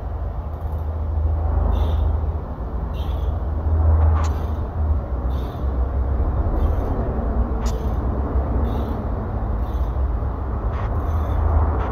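Steady low mechanical rumble of workshop machinery, with short hisses about once a second and two sharp metallic clicks.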